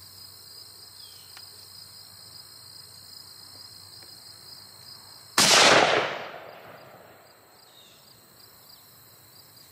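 A single shot from a .458 Winchester Magnum rifle about five seconds in, loud and sudden, its boom dying away over a second or so. Insects chirr steadily underneath.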